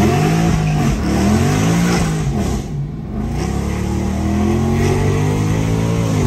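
Car engine accelerating hard through the gears, heard from inside the cabin. The pitch climbs and drops at upshifts about a second in and again near the middle, then climbs steadily for about three seconds before falling away near the end.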